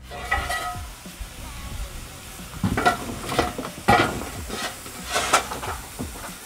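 SECR H class 0-4-4 tank engine No. 263 standing in steam, hissing steadily, with a run of sharp, irregular louder bursts of steam and knocks in the middle of the stretch.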